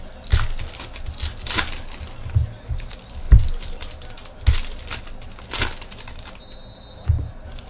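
Foil trading-card packs crinkling and tearing as they are ripped open by hand, with irregular crackles and clicks and a few dull knocks of packs and cards on the table.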